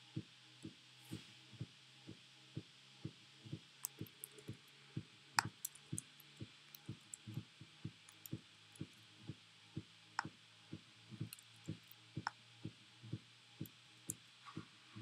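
Soft low thumps in a steady, even beat of about two a second over a faint low hum, with a few sharp clicks scattered through.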